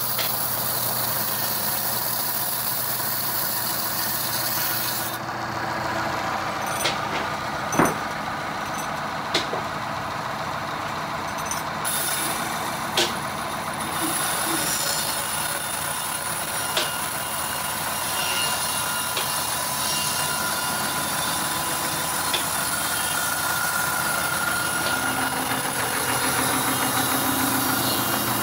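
Band sawmill running, its blade cutting lengthwise through a mahogany log with a steady mechanical drone. Several short sharp knocks stand out, the loudest about eight seconds in.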